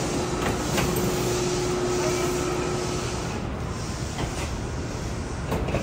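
Station platform noise beside a standing Narita Express train: a steady hum with a single steady tone that stops about three seconds in, and a few light knocks.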